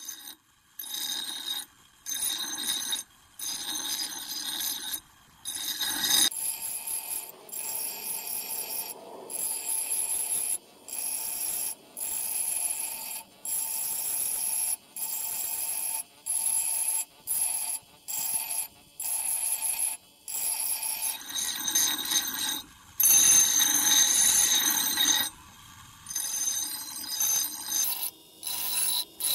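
Steel chisel being ground on a bench grinder's stone wheel: a harsh, high-pitched ringing screech of metal on the wheel in repeated short passes, each lasting about a second or two with brief breaks between as the chisel is lifted and set back.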